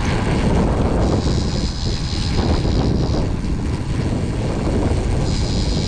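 Motorbike riding with steady engine and road noise, and a high-pitched noise from its cheap aftermarket front disc brake that comes in twice, about a second in for two seconds and again near the end. The brake noise sounds only while the brake is applied and stops when it is released.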